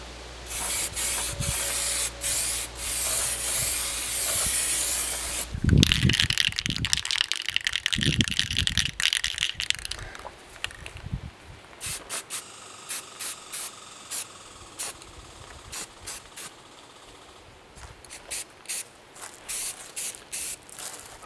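Aerosol can of self-etching primer spraying onto a metal seat pan: a long hiss broken by a few short pauses, then a stretch of clattering handling noise, then a string of short quick spurts.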